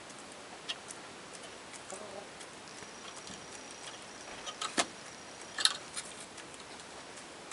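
Domestic hens moving about in a plastic hen house: a few sharp taps and clicks, the loudest two close together a little past halfway, over a steady low hiss.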